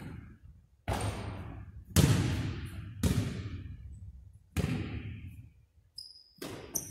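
Basketball striking the hardwood gym floor and backboard: four loud single impacts about a second apart, each ringing out in the echoing gym. A couple of short high squeaks come near the end.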